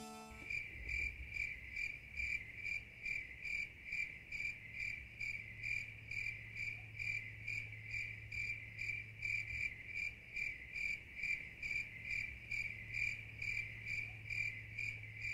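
Cricket chirping steadily in an even rhythm, about two and a half chirps a second.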